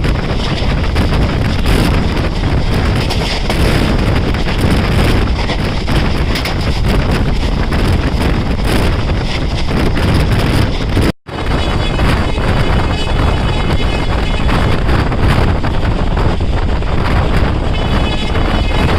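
Passenger train running at speed, heard from the coach: a steady rumble of wheels on the track with heavy wind buffeting the microphone. The sound cuts out abruptly for a split second about eleven seconds in, then carries on the same.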